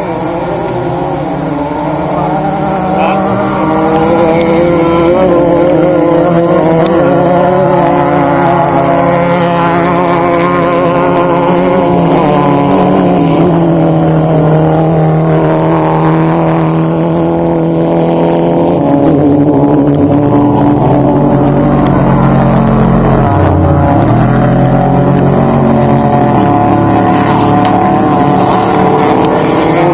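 Several off-road race vehicles' engines running hard, their pitches rising and falling as they accelerate, shift and pass. The sound builds over the first few seconds and then stays loud, with one engine dropping sharply in pitch about three-quarters of the way through.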